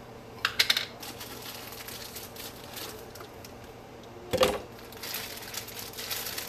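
Plastic bag of marshmallows being handled and opened, crinkling, with a quick cluster of clicks about half a second in and a single thump about four seconds in.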